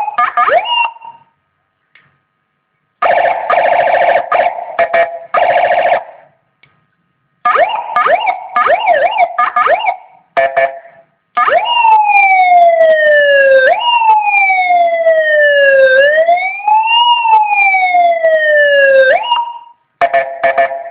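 Seven-tone police-escort electronic siren cycling through its tones. It opens with quick yelping chirps, then after a short gap a buzzing horn tone in several pulses, more fast yelps, and a long slow wail that falls and rises twice. Short horn bursts come near the end.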